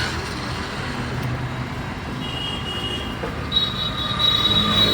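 Road traffic noise, a steady low rumble, with thin high-pitched whistling tones joining about two seconds in and again for the last second or so.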